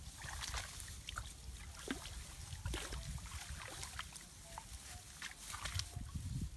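Hands groping and splashing in shallow muddy water among rice plants: a scatter of short, irregular splashes and squelches over a low rumble.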